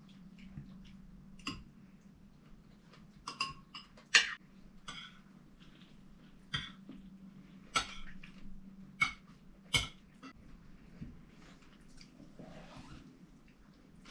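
Metal cutlery clinking on ceramic plates and bowls during a meal: sharp, ringing clinks every second or two, the loudest about four seconds in, over a low steady hum.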